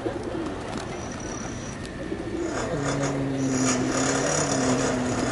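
Feral pigeons cooing: a low, drawn-out coo starts about halfway through and runs on, with short high ticks around it.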